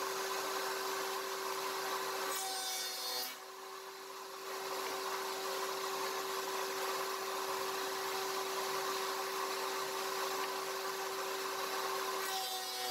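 Router spinning a 14-degree dovetail bit in a SHARK RS1000 Pro CNC router table, running steadily with a constant whine. The bit routes across the end of a wooden test board about two and a half seconds in, and again near the end as a second board is fed past it.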